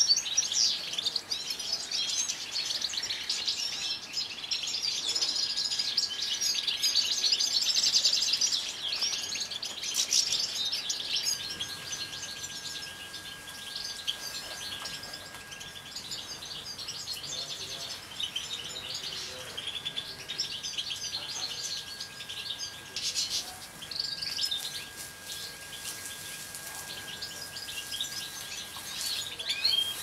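Several European goldfinches chirping and twittering together in a dense, continuous chatter that is busiest in roughly the first ten seconds.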